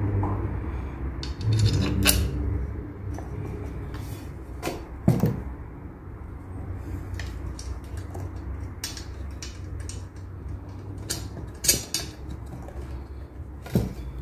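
Hands fitting a front wheel holder arm to the plastic deck of a twin suction-cup bike rack mount and turning the assembly over: scattered clicks and knocks of metal hardware and plastic parts, over a steady low hum.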